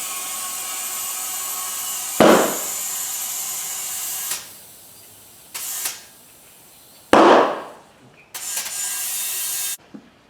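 Compressed air hissing into a golf cart tire, with two loud bangs, about two seconds in and again about seven seconds in, as the tire beads pop onto the rim. Short bursts of air hiss come between and after the bangs.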